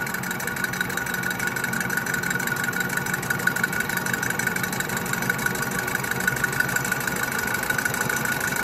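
Colchester Student lathe running steadily while its tool takes a facing cut across a spinning metal disc. A constant high whine with a low hum under it, and many small irregular clicks from the cut.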